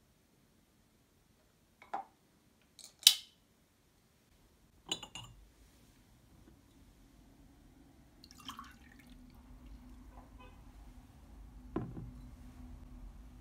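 Glass and dishes handled in a kitchen: a few separate sharp clinks and knocks, the loudest and brightest about three seconds in. A low steady hum comes in about halfway through.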